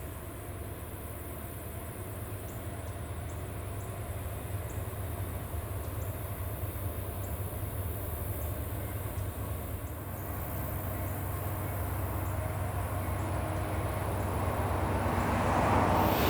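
Diesel locomotives of an approaching train: a steady low engine rumble that grows slowly louder and swells sharply near the end.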